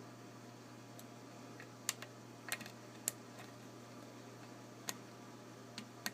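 Small sharp metallic clicks, about six at irregular intervals, from a short hook pick working the mushroom (spool) pins of an old Yale pin-tumbler padlock held under tension in a false set.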